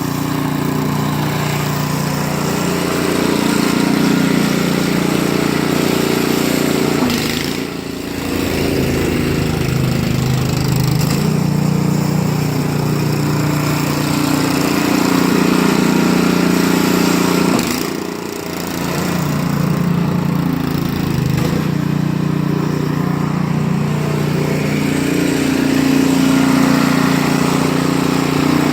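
Small gasoline engine, such as a snowblower's, running steadily. It dips briefly in level twice, about a third of the way in and again past halfway.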